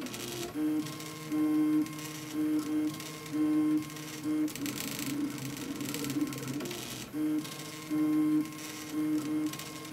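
RepRap Mendel 3D printer's stepper motors whining in short pitched bursts, each a fraction of a second, as the print head moves back and forth, printing with the slicer set to a 100 mm/s feed rate. A steady hum runs underneath.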